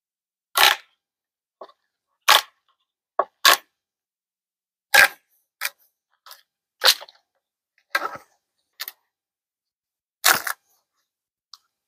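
About a dozen sharp single knocks on wood, irregularly spaced roughly a second apart, as waste is struck out of the notches cut in a wooden post.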